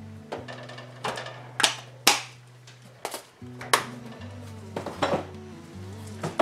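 About half a dozen sharp knocks and clicks of kitchen containers being handled on a counter, the loudest around two seconds in and again near four and five seconds in, over steady background music.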